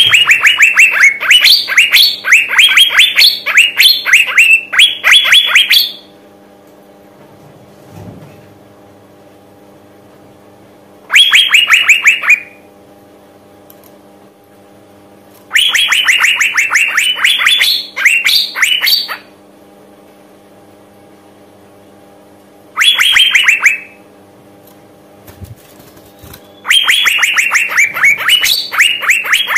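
Female Asian fairy-bluebird calling in bouts of rapid, sharp notes, each sliding down in pitch. There are five bouts of one to six seconds with short pauses between them, over a faint steady hum. These are the female's calls used as a lure (pancingan) to set male fairy-bluebirds singing.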